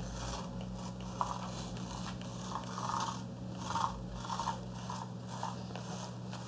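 Homemade motor-driven cardboard toy car scuttling over carpet with a dry, scratchy rustling that comes in irregular patches over a steady low hum.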